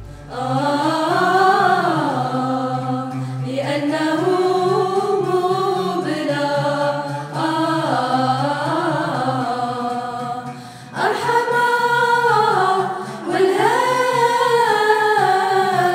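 Vocal music: a choir sings long, sliding, ornamented phrases over a steady low drone, with brief breaks between phrases.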